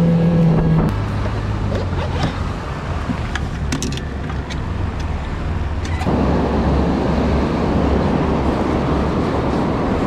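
Boat motor running at speed with a steady tone, then throttled back about a second in and settling to a lower idle hum. A broad rushing noise comes up about six seconds in.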